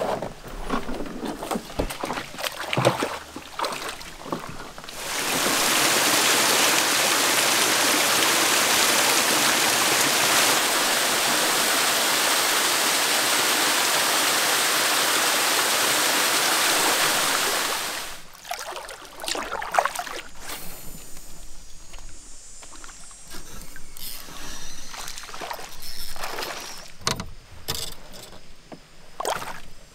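A canoe being hoisted and handled on a portage, with scattered knocks. Then a small waterfall rushes loudly and steadily for about thirteen seconds, and after that come more scattered knocks and splashes from the canoe on the water.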